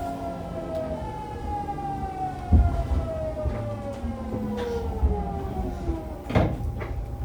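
Hitachi GTO-VVVF inverter of a Fukuoka City Subway 2000 series train whining in several tones that fall steadily in pitch as the train brakes, over the low rumble and thumps of the wheels on the rails. The whine dies away about six seconds in, followed by a sharp knock.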